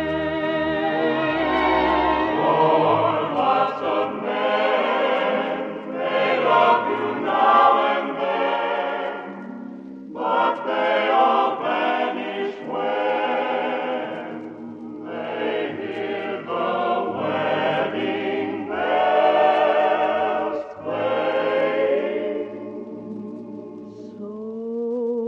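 Choir singing a slow ballad with orchestra, long held notes with vibrato, in a 1950 radio broadcast recording; the singing breaks off briefly about ten seconds in and dies away near the end.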